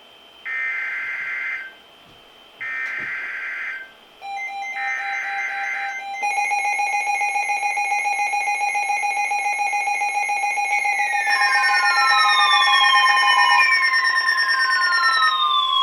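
Emergency Alert System header: three short screeching data bursts, then a loud steady multi-tone attention signal starting about six seconds in. From about eleven seconds, falling siren-like sweeps repeat over the steady tones.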